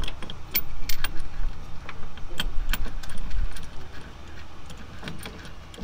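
Metal bolts clicking and ticking against the engine mount bracket as they are lined up and threaded in by hand. There are irregular small clicks over a low rumble of handling noise, and both thin out after about three and a half seconds.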